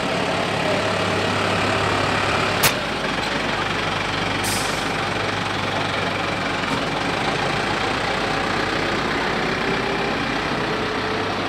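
Farm tractor's diesel engine idling steadily close by, with a sharp click about two and a half seconds in and a brief hiss near the middle.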